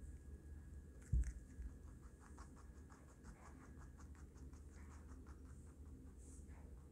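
Baby rabbit chewing chopped raw vegetables: a rapid run of small crunching clicks. A low thump about a second in.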